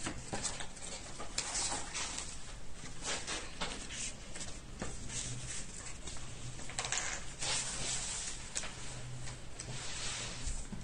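Paper and card being handled on a table: irregular soft rustles, brushes and light taps, with a longer rustle a little past the middle.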